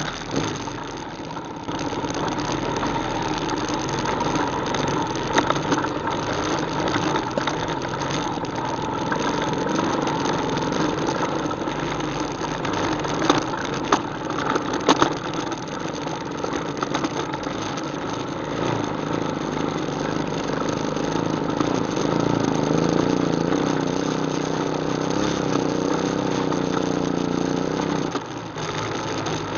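ATV engine running steadily, with a few sharp knocks about halfway through; the engine note rises a little late on and then drops off abruptly near the end.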